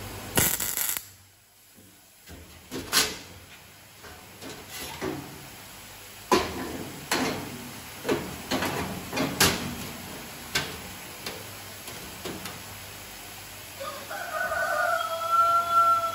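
Sheet-metal panel and steel-tube frame clanking and tapping as the panel is handled and fitted into place: a short noisy burst just after the start, then a string of separate knocks. Near the end a rooster crows once in the background.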